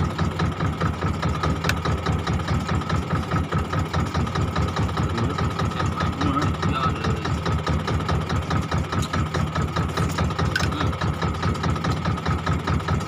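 Fishing boat's engine running steadily: a low, even chugging with a fast regular beat and a thin steady whine above it.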